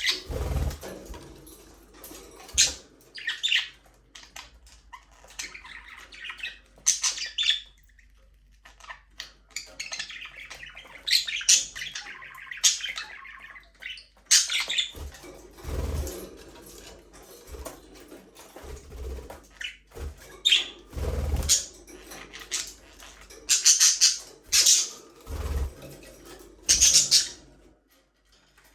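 Budgerigars chirping and chattering in quick bursts of high, short calls, with a few low thumps in between.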